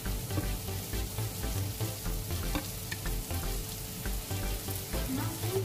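Onion and carrot strips sizzling in a hot nonstick frying pan, stirred now and then with a wooden spoon that scrapes and clicks against the pan.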